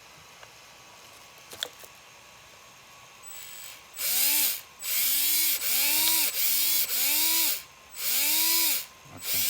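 Reedy 17-turn RC motor spun up in short throttle bursts, about six in a row starting about four seconds in, each one whining up in pitch and winding back down. It runs cleanly, a sign the motor is healthy.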